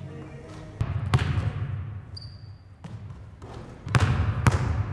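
Basketball bouncing on a hardwood gym floor: a pair of bounces about a second in, then two more dribbles near the end. Each echoes through the hall. A brief high squeak comes in between.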